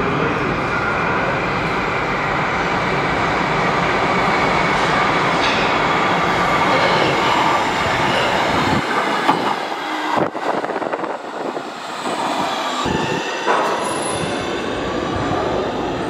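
A metro train runs into an underground station, making a loud steady rumble with thin squealing from its wheels. There are a few sharp clanks in the second half, and a rising whine near the end.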